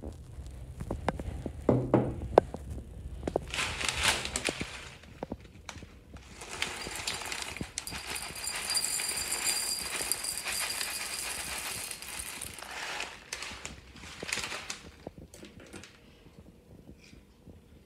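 Honey-coated puffed wheat cereal poured from its plastic bag into a ceramic bowl: a dry rattling patter in three pours, the middle one the longest at about six seconds. A few knocks come just before.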